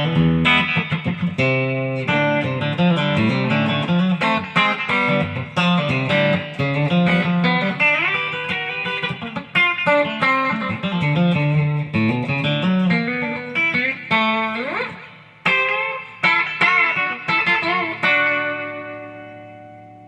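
Custom-built Stratocaster-style electric guitar played through its bridge pickup: a run of picked single notes and chords with a rising slide about three-quarters of the way in, ending on a chord left to ring out and fade.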